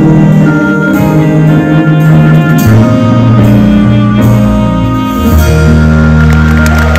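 Live band playing the instrumental close of a song: sustained chords over a bass line, with the chord changes settling about five seconds in onto one long held chord.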